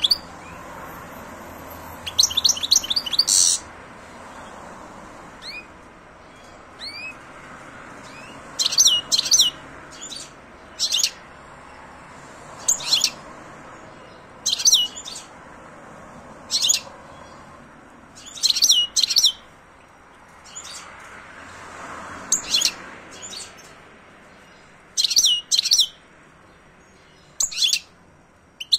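Male European goldfinch singing: short bursts of quick, high twittering notes, a phrase every second or two with pauses between.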